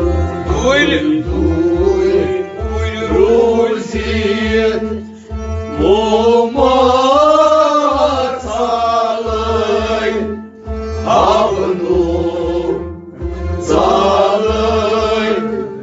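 Kashmiri Sufi devotional song: a male voice singing a melismatic line over a harmonium, with string instruments and a steady hand-drum beat about twice a second.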